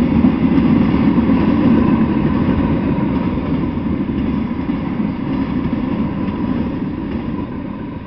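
A passing freight train of covered hoppers, a tank car and a flatcar: a steady rumble of steel wheels on rail that begins to fade over the last couple of seconds as the end of the train approaches.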